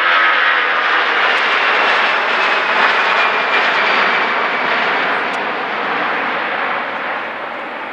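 Four-engine Airbus A340 jet airliner climbing out overhead just after takeoff, its engines running at takeoff power with a loud, steady rush. The noise fades gradually over the last few seconds as the aircraft moves away.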